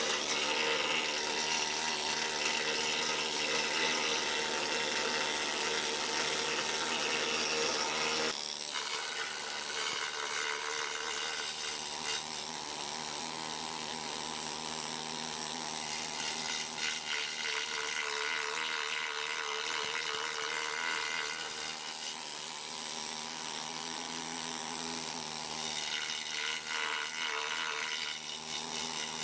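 Harbor Freight air-powered needle scaler running against the painted metal base of a bandsaw, its needles hammering off the old paint in a continuous buzzing chatter. It gets a little quieter about eight seconds in and then runs steadily on.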